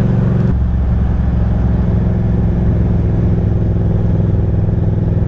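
Motorcycle engine running steadily under way, its sound changing abruptly about half a second in and then holding steady.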